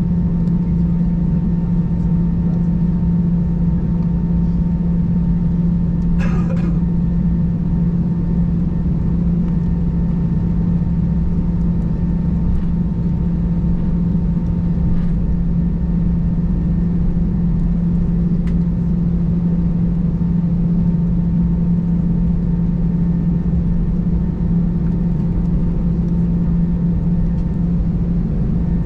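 Steady drone inside an Airbus A320's cabin as it taxis, the jet engines at low taxi power: a strong low hum with a thin steady whine above it.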